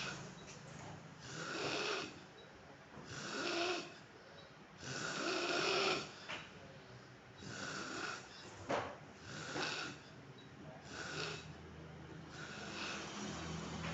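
A man snoring in his sleep: about seven rough snores, one every two seconds or so, with a short sharp click about nine seconds in.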